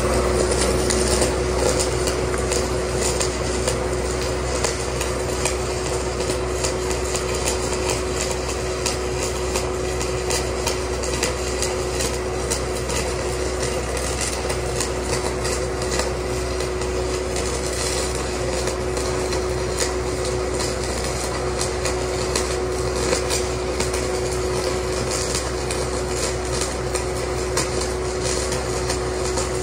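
Stick-welding arc crackling steadily from 7018 rods run at about 800 amps, over the constant drone of the engine-driven 800 Air Pak welder working under load.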